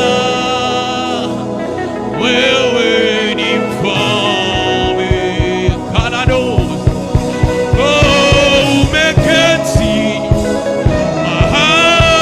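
Gospel worship song with singing; a steady low beat comes in about five seconds in and keeps time under the voices.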